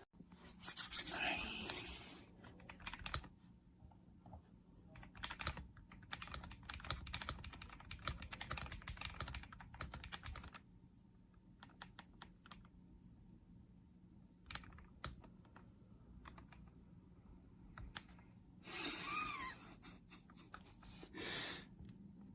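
Typing on a mechanical keyboard fitted with Gateron Milky Yellow Pro linear switches: quick, dense key clicks for about the first ten seconds, then slower, scattered key presses.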